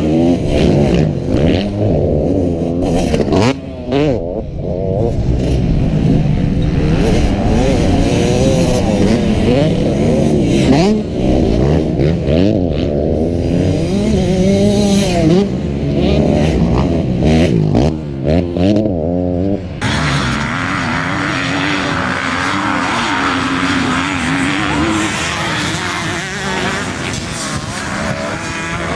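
Motocross bike engines revving hard, their pitch repeatedly climbing and dropping as the bikes accelerate, shift and pass close by. About twenty seconds in, the sound changes abruptly to a steadier, more even din of several bikes racing.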